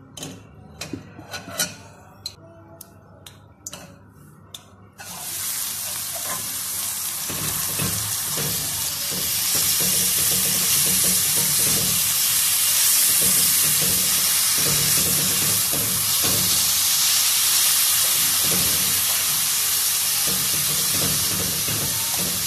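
A few sharp clicks of a metal spoon in an aluminium kadai, then, about five seconds in, a sudden loud, steady sizzle as wet, freshly washed fenugreek (methi) leaves go into hot oil. The sizzle carries on while the leaves are stirred and fried, with the spoon knocking and scraping the pan.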